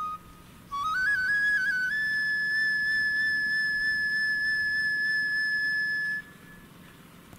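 A flute-like melody: a few quick notes stepping upward, then one long held high note lasting about four seconds before it stops.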